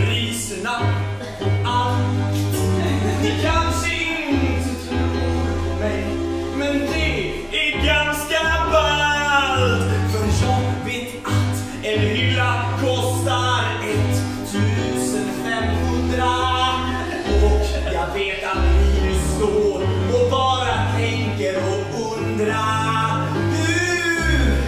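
A man singing an improvised song to live electronic keyboard accompaniment, with held low bass notes under the melody.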